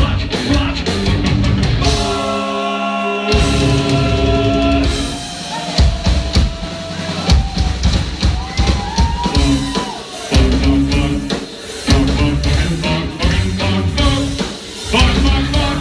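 Live metal band playing loudly: electric guitars, bass and a drum kit with sung vocals. About two seconds in, the bass and drums drop out briefly, leaving a held chord, before the full band comes back in.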